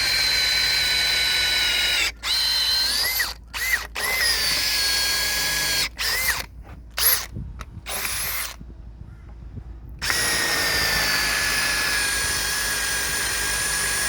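Makita 18-volt drill fitted with a 12 mm carbide-tipped multi-purpose bit, boring into a hardwood post. The motor whine sags slightly in pitch under load, and it cuts out and spins back up several times. It then stops for about a second and a half before running steadily again.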